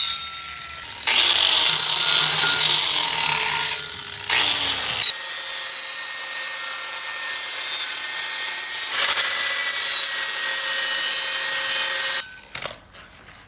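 A power cutting tool cutting through steel exhaust pipe under a car, in three runs, the last and longest about eight seconds before it stops suddenly.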